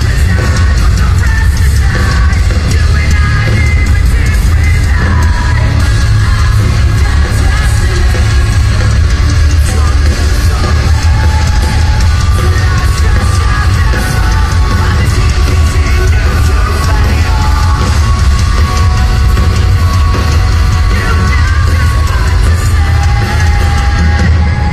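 Post-hardcore band playing loud live through a festival PA: drums and distorted guitars over a heavy, steady low end, with a singer's voice on top, recorded on a phone in the crowd.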